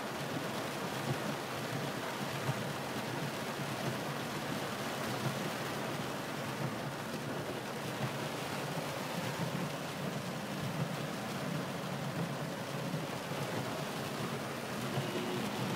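Heavy rain falling on a car's roof and windows, heard from inside the cabin: a steady hiss with scattered sharper drop hits.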